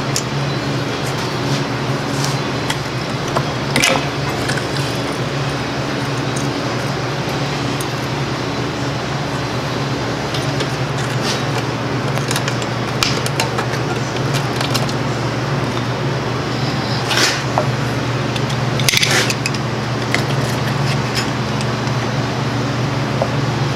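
A steady low mechanical hum, with a few sharp metallic clinks as brake spring pliers work the springs and hardware of a drum brake, two of them close together in the second half.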